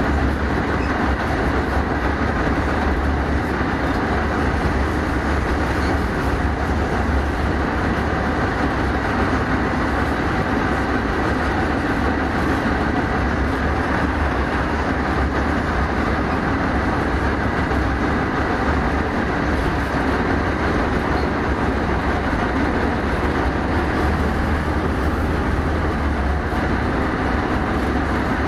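ZSU-57-2 self-propelled anti-aircraft gun driving: its diesel engine runs steadily under the rumble of its tracks, with a heavy, even low drone throughout.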